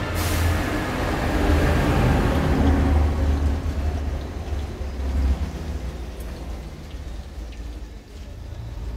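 Final crash of the karaoke backing track: a sudden hissing hit that fades away over about five seconds, with a low rumble underneath that trails on until the audio cuts off.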